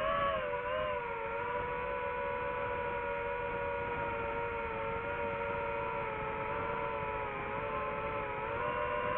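DJI FPV drone's motors and propellers whining steadily, the pitch wavering slightly as the throttle changes.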